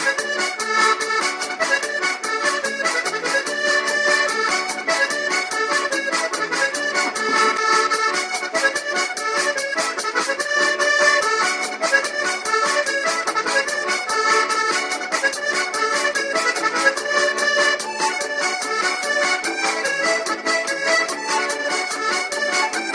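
Music: held, accordion-like chords under a fast, steady high ticking rhythm.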